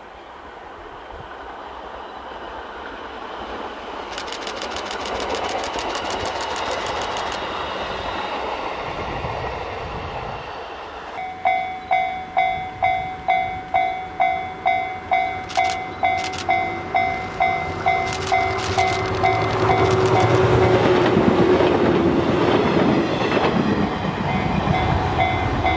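Train running noise builds up and then eases. Then a level-crossing bell rings in a steady pulse about twice a second while a Shinano Railway 115-series electric train approaches, its rumble and rail noise growing steadily louder.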